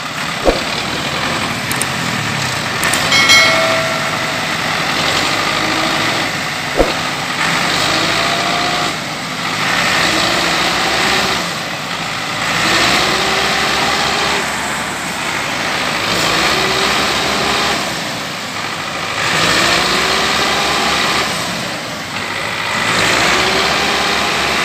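Massey Ferguson 385 tractor's diesel engine labouring as it pulls a heavily loaded sugarcane trolley, its pitch and loudness rising and falling in repeated surges every two to three seconds. A couple of sharp knocks stand out early on.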